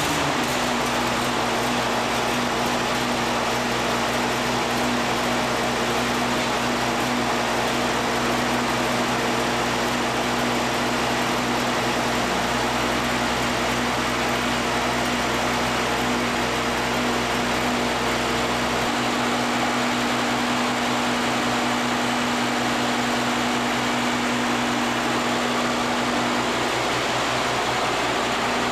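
Oliver 88 tractor's six-cylinder diesel engine running steadily at a constant speed, a low hum with a dense mechanical rush over it.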